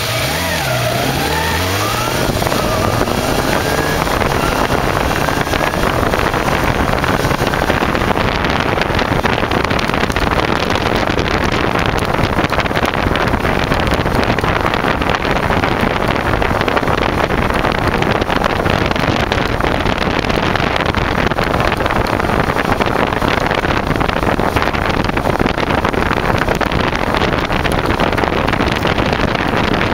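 Kawasaki Zephyr 550's air-cooled inline-four engine revving up as the bike accelerates, its pitch rising over the first couple of seconds. After that, wind rushing over the microphone at riding speed covers the engine.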